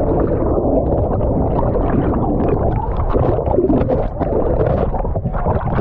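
River water churning and bubbling, heard through a GoPro Hero 9 submerged in it: a steady, muffled, deep rush with small bubbly crackles.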